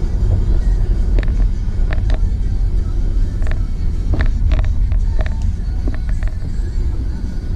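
Car driving at highway speed, heard from inside the cabin: a steady low road and engine rumble, with scattered short sharp ticks over it.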